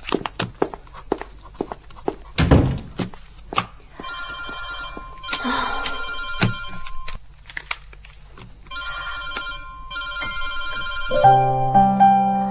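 A mobile phone ringing with a bell-like trill, in long rings about three seconds each, after a few clicks and a thump at the start. Background music with low melodic notes comes in near the end, under the ringing.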